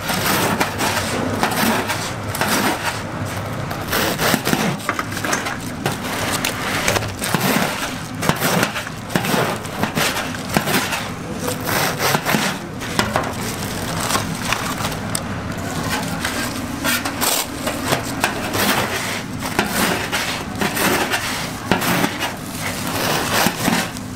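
Long knife crunching through deep-fried, crumb-coated toast sandwiches on a steel counter: a run of crisp crackling cuts, one after another, over a steady low hum.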